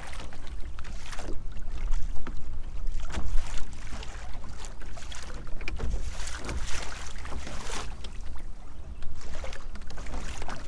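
Wind buffeting the microphone with a steady low rumble, while choppy water slaps and splashes irregularly against the Old Town Predator PDL kayak's hull.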